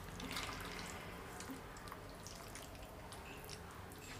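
Faint wet squelching and small clicks of a hand kneading chicken pieces into a thick spice paste in a bowl.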